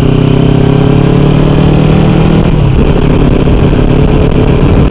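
Kawasaki Ninja 300's parallel-twin engine running steadily while riding, its pitch dipping a little about halfway through.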